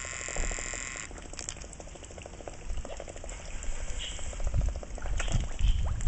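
Black swans dabbling their bills at the water's surface among koi: a fast, rhythmic wet chattering and slurping. A brief high tone sounds in the first second, and low rumbles of wind or handling come near the end.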